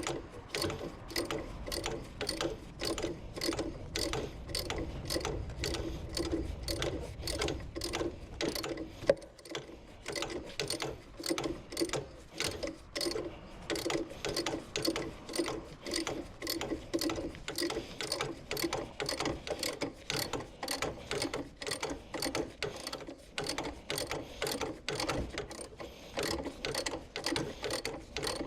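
Hand socket ratchet wrench clicking in a steady rhythm, a few clicks a second, as a bolt is turned. There is one louder knock and a brief lull about nine seconds in.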